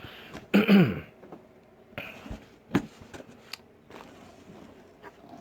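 Papers and packaging rustling as they are handled, with a few sharp clicks and taps. About half a second in, a short falling vocal sound from a person, the loudest thing heard.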